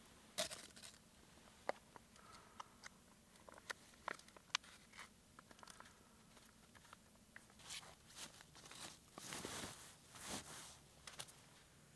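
Faint scattered crunches and clicks of gear being handled in snow, with a longer rustle about nine to ten seconds in.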